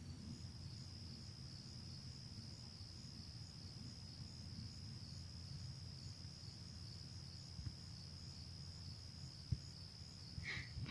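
Faint steady high-pitched insect trill over a low, steady drone of distant motors that stay in one place rather than passing by. One short tick near the end.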